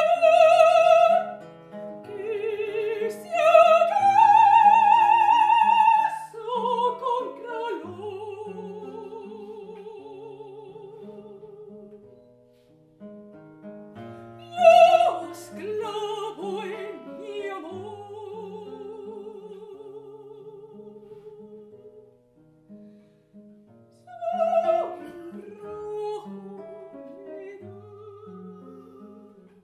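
Operatic soprano singing a Spanish art song with classical guitar accompaniment. Loud, high vibrato phrases come in the first few seconds, again about halfway and once more near the end, with softer held notes over plucked guitar between them.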